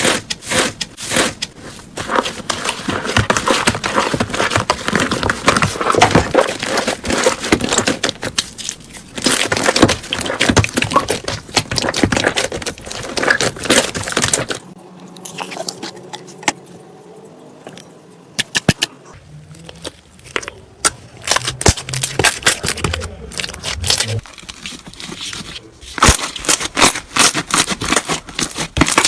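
Slime being pressed and squeezed by hand, giving off dense runs of crackling, popping clicks in several bursts with quieter gaps between them.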